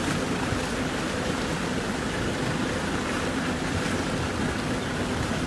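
Steady rush of wind and choppy sea water heard from a small boat, with wind buffeting the microphone and a faint low steady hum underneath.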